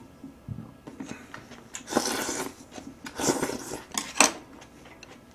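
Close-miked eating: two short bursts of chewing and slurping with a full mouth, and a few sharp clicks of chopsticks against an earthenware pot.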